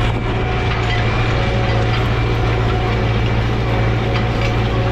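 Massey Ferguson 6455 diesel tractor engine running steadily under load at about 1700 rpm while pulling a disc harrow through unplowed ground, heard through the open cab window as an even, unbroken hum.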